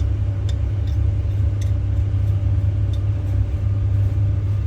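Refrigeration vacuum pump running with a steady low hum, evacuating the fridge's refrigerant circuit after the compressor replacement. A few faint ticks are heard over it.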